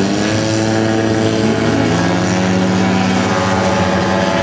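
Large RC model biplane's piston engine and propeller running at high power as it takes off, the pitch rising near the start as the throttle opens and then holding steady.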